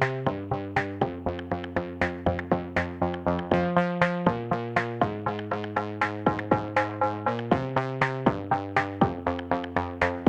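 Background music: a melody of short, plucked-sounding notes at a steady, even pace of about four notes a second.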